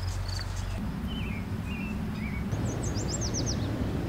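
A songbird gives a few short chirps, then a quick run of downward-sweeping high notes, over a steady low rumble of outdoor ambience.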